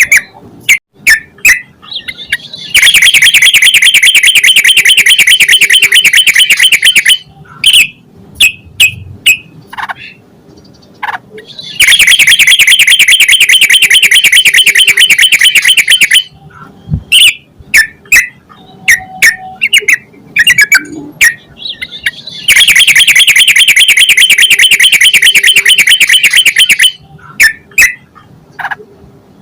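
Yellow-vented bulbul (trucukan) calls from a lure recording: loud short chirps and phrases, broken three times by long runs of rapid, fast-repeated chattering notes lasting about four seconds each.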